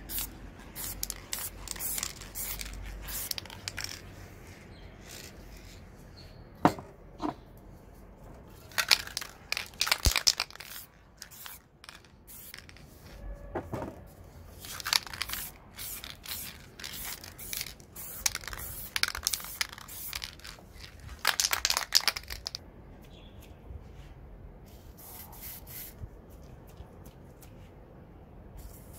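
Aerosol spray-paint can hissing in several short bursts of about a second each, with a few sharp clicks and knocks of cans and lids being handled in between.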